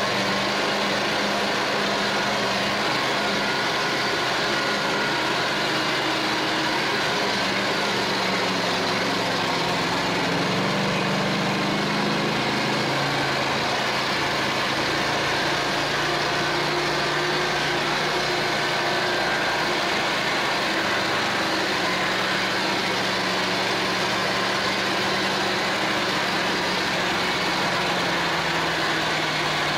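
Homemade all-terrain vehicle's engine running steadily while driving over snow. Its note swells about ten seconds in, then settles to a slightly lower pitch.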